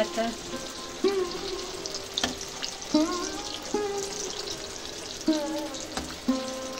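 Chicken kebab pieces deep-frying in hot oil in a wok, with a steady sizzle and crackle as a metal slotted spoon stirs them. A background melody plays over it.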